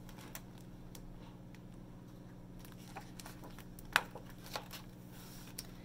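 Quiet room tone with a steady low hum, a few faint clicks and, near the end, a soft rustle of a picture book's paper page being handled and turned.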